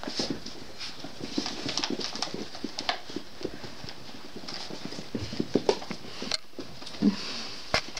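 Four-week-old Labrador puppies scuffling and playing on carpet: an irregular patter of small knocks and scrabbling from paws, bodies and toys.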